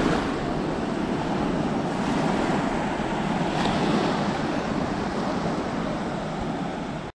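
Sea surf washing onto a beach: a steady rushing of breaking waves that swells and eases slightly as the waves come in.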